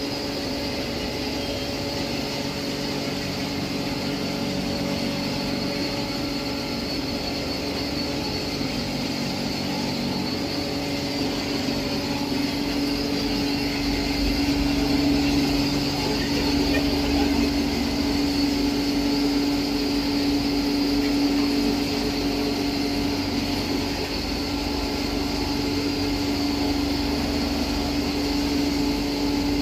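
A 20 HP blower-type pulverizer and its electric drive motor running steadily while grinding rice husk into powder: a continuous mechanical drone with a steady hum. It grows somewhat louder about twelve seconds in.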